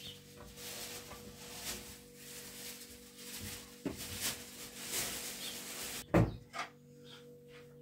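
Rustling and handling noises at a window and its curtain, then one loud knock about six seconds in, like a wooden frame being shut.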